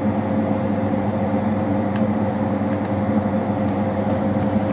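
Steady mechanical hum of a split-type room air conditioner running, with several low held tones and one clearer tone above them.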